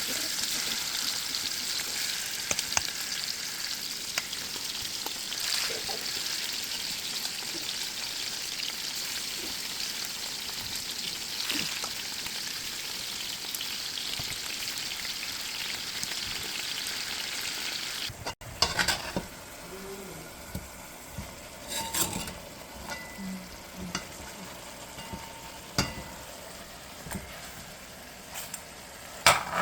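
Curry chicken frying in a pot, a steady sizzle. About eighteen seconds in the sizzle drops off abruptly, and quieter stirring follows, with scattered knocks and clinks of a utensil against the pot.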